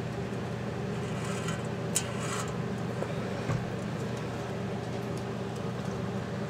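A pin scratching into the painted side of an aluminium soda can: a short scraping burst about a second in, with a sharp click in its middle, marking the can's second drain port. A dull knock follows, as the can is lifted from the bench, over a steady low hum.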